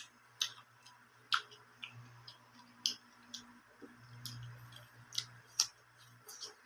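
Close-up chewing of raw onion: faint, irregular crisp crunches and wet mouth clicks, about a dozen scattered through.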